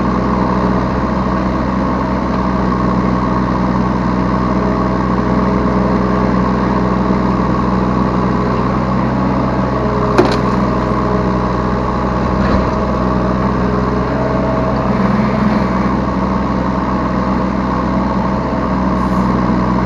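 Diesel engine of a Yanmar B3Σ 3-tonne mini excavator running steadily while the machine works, with a single sharp knock about ten seconds in and a lighter one shortly after.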